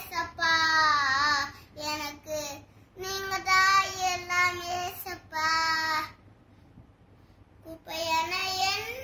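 A young boy singing a Tamil Christian song alone, without accompaniment, holding long wavering notes, with a pause of about two seconds a little past the middle before he sings on.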